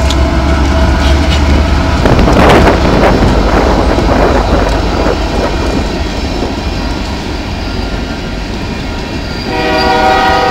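Freight train passing close by: the diesel locomotives' low engine rumble for the first second or so, then the steady rattle and clatter of hopper cars' wheels on the rails. About nine and a half seconds in, the train's air horn starts sounding, a chord of steady tones.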